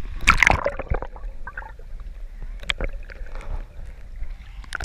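Seawater splashing and gurgling around a waterproof camera as it moves through shallow water and dips below the surface, with a low muffled rumble and scattered sharp knocks and splashes, the loudest about a third of a second in.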